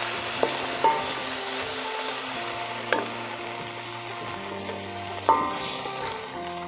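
Water poured into a hot metal wok of sautéed leaves and aromatics, sizzling and bubbling as a wooden spatula stirs it. The spatula knocks sharply against the wok a few times, loudest about five seconds in.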